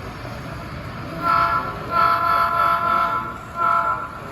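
Model train's electronic horn sounding in blasts: a short blast about a second in, a long one of about a second, then another short blast, over a steady hall hum.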